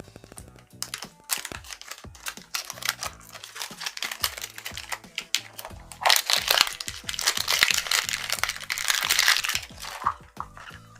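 Background music under close, crackly crinkling and crunching, loudest and densest from about six seconds in to about ten.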